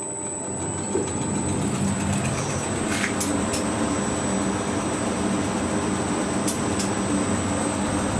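1961 Schindler elevator in motion: a click, then a steady running rumble that builds over the first second and holds, with a few scattered clicks and a faint high whistle.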